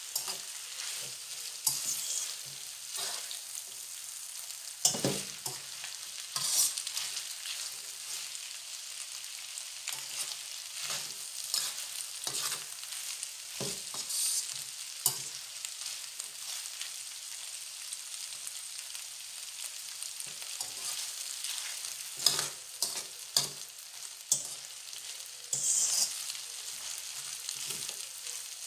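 Chicken and vegetable noodles sizzling in a hot frying pan as they are stir-fried and tossed, a steady hiss with irregular scrapes and knocks of the utensil against the pan.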